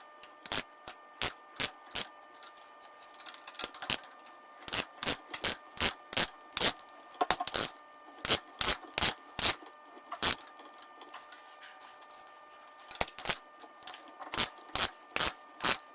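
Sharp ratcheting clicks, about three a second, from a wrench turning the threaded bolt of a homemade headset press on the top bearing cup. They come in three runs with short pauses between.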